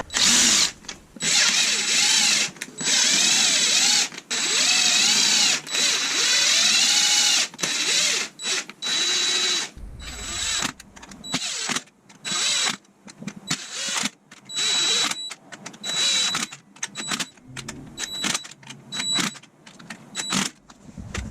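Cordless power driver running bolts down into an engine cover with a 10mm socket. It whirs in repeated bursts: several long runs, then many short quick pulses as each bolt is snugged.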